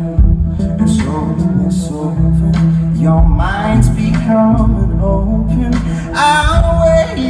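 Male voice singing live into a microphone, the pitch gliding and held between phrases, over steady sustained low accompaniment notes.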